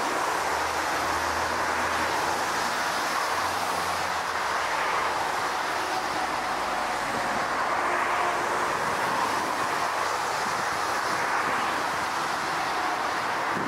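Airbus A380 on final approach: the steady rushing roar of its four jet engines, mixed with gusty wind blowing on the microphone.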